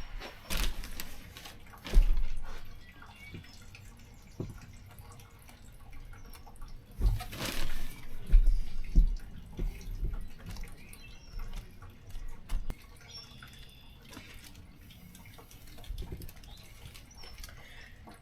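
Irregular knocks, taps and rustles of hands working potting soil into plastic seed-starting cups in a tray, loudest in a few short clusters.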